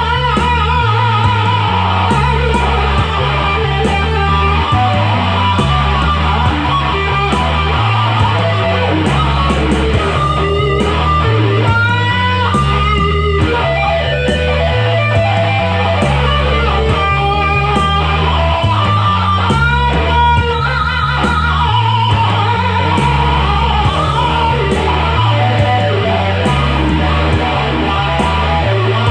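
Instrumental rock music: an electric guitar plays a melodic lead with bent notes over a steady bass line and drums.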